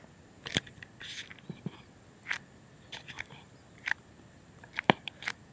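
Irregular sharp clicks and small rustles from a Nikon D3100 DSLR being handled, its buttons and dial pressed as its shooting mode is set; the loudest click comes about five seconds in.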